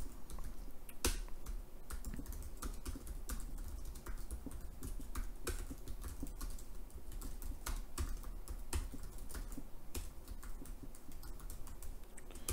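Typing on a computer keyboard: quick, irregular runs of key clicks with short pauses between bursts.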